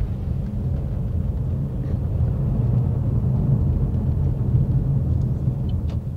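A vehicle driving along a road: a steady low rumble of engine and road noise.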